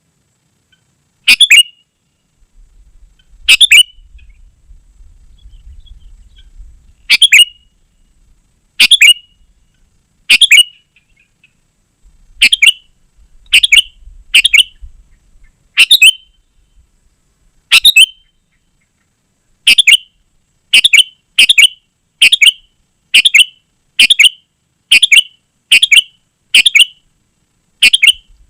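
Sooty-headed bulbul (kutilang) calling: short, sharp, loud calls, a few seconds apart at first, then coming about once a second in the second half.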